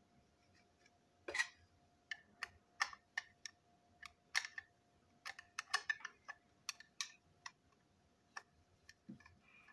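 Irregular sharp clicks and taps of small plastic toy-locomotive parts being handled and a screwdriver working into the plastic chassis during disassembly.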